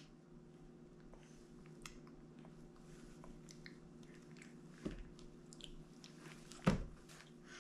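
Baby quietly mouthing and chewing soft durian, faint wet little clicks and smacks. A soft thump about five seconds in and a sharper, louder one near the end.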